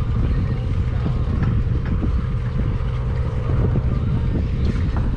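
Party boat's engine running with a steady low rumble.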